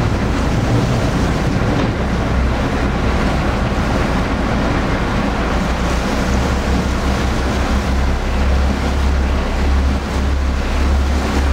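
Passenger ferry under way: a steady low engine drone under the rush of water along the hull, with wind buffeting the microphone.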